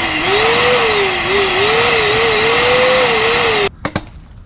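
Bauer 14-gallon 6 hp wet/dry shop vac running loud, its motor whine wavering up and down in pitch. It cuts off suddenly about three-quarters of the way through, followed by a couple of sharp knocks.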